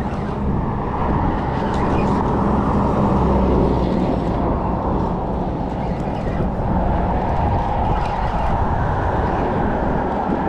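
Steady rumble of road traffic crossing the bridge.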